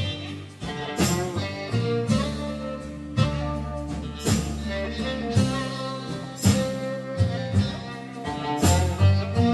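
Instrumental background music, with a strong note about once a second.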